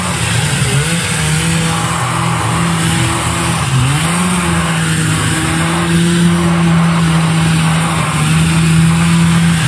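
Six-wheeled amphibious ATV's engine running under throttle as it manoeuvres around cones on dirt. The engine note dips in pitch about a second in and again around four seconds, then climbs back and holds steady.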